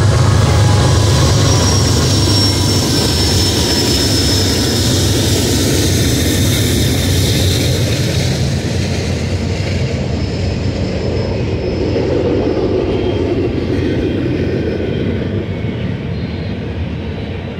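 BNSF GE diesel locomotives (an ES44C4 leading two Dash 9-44CWs) running past under power: a steady low engine drone, with a thin high whine over it for the first few seconds. After about eight or nine seconds the engine sound fades and the rumble of double-stack container cars rolling on the rails takes over.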